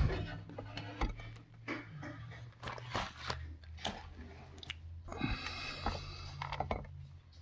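Irregular small clicks, taps and crackling rustles of objects being handled on a work surface, over a low steady hum.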